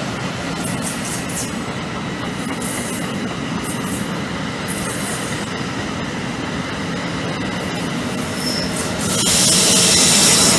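NJ Transit push-pull train of double-deck coaches passing at speed: a steady rumble of wheels on rail. It grows louder, with a strong high hiss, about nine seconds in as the electric locomotive at the end of the train goes by.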